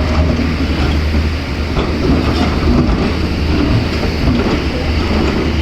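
Heavy diesel earth-moving machinery running steadily with a deep engine drone, with a few light metallic knocks and clanks over it.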